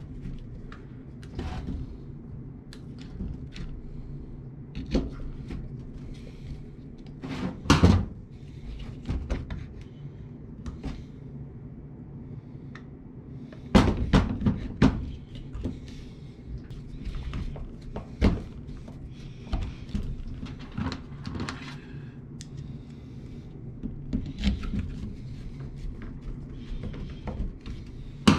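Plastic washing-machine drain pump and its housing being handled and fitted together on a bench: scattered knocks and clicks, the loudest about eight seconds in and again around fourteen seconds, over a steady low hum.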